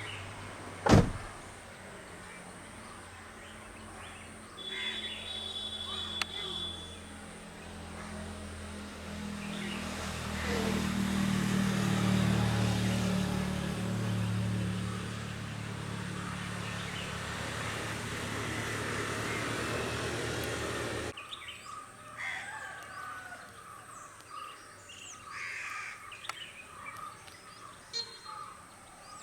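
A sharp click about a second in, then the steady hum of an engine running, swelling and easing. It cuts off abruptly about two-thirds of the way through, leaving quiet outdoor ambience with small birds chirping.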